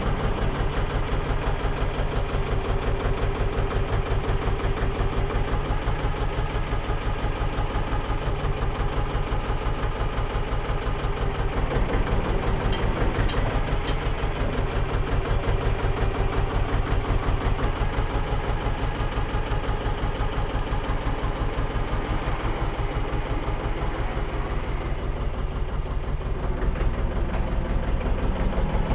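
Kramer KL300 wheel loader's engine running near the camera at low revs, a rapid, even exhaust beat that swells slightly now and then as the loader manoeuvres.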